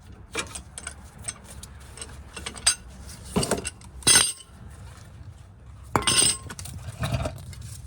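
Metal tools and brake parts clinking and clanking as they are handled, a string of light clicks with several louder metallic knocks.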